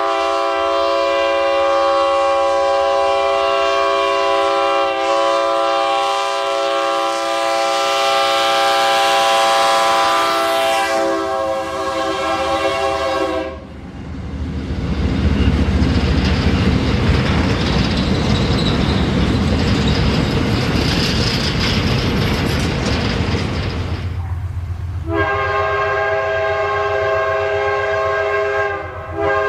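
Locomotive air horn sounding one long blast of several notes at once, cutting off sharply after about thirteen seconds. A train then rumbles past with rattling wheel noise for about ten seconds, and the horn chord sounds again near the end.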